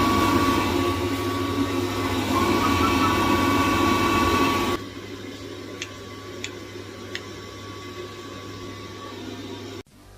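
Newly fitted combustion fan of a Baxi Potterton boiler running on test with a steady rushing noise and a thin whine, cutting out suddenly about five seconds in; three faint clicks follow over a low hum.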